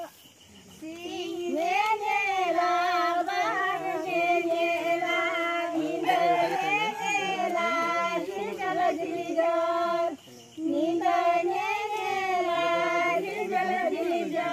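High-pitched singing in long, ornamented phrases, with steady held notes between bending turns, breaking off briefly about ten seconds in.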